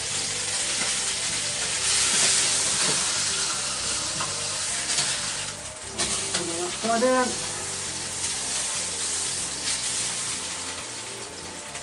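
Pork steaks sizzling as they sear in a very hot wok with a little pork fat: a steady frying hiss that thins briefly about halfway through.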